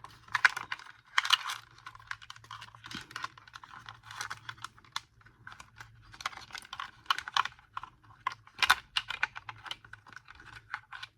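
Hard plastic parts of a Bissell Powerforce Turbo upright vacuum clicking, rattling and scraping as they are pried and pulled apart by hand, in irregular bursts of sharp clicks. A faint steady low hum runs underneath.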